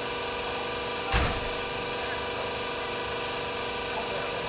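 Sulzer-engined ND2 diesel-electric locomotive giving off a steady, even mechanical drone. One short thump sounds about a second in.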